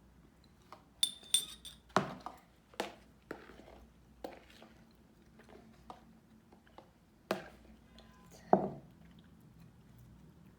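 Containers and utensils being handled during slime making: a string of sharp clicks and knocks, with a few high, ringing clinks about a second in. The loudest knocks come about two seconds in and again near seven and eight and a half seconds.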